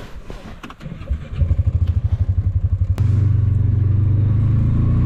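A few knocks and clatter, then a vehicle engine starts about a second and a half in. It runs with a fast uneven pulsing at first and settles into a steady idle about three seconds in.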